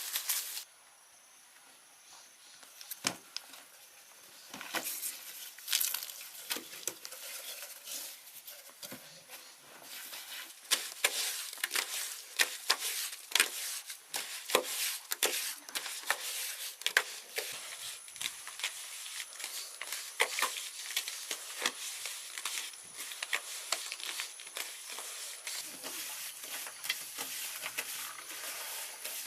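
Irregular crackling and popping that grows much denser about ten seconds in, with a faint sizzle underneath.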